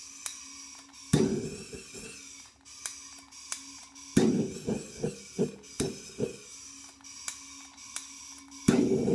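Handheld gas blowtorch hissing steadily inside a thrown clay vase to dry and stiffen its bottom, with several soft thuds as gas collecting in the vessel catches: one about a second in, a quick run of them midway, and another near the end. A faint low hum runs underneath.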